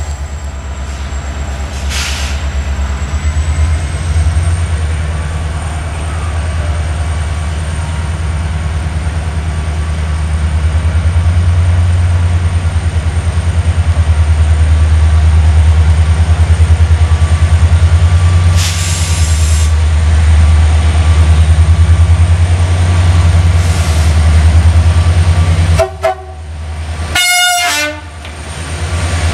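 CFR Class 65 diesel-electric locomotive running with a loud, steady low engine hum. About two-thirds through there is a short hiss of air, and near the end a brief horn toot.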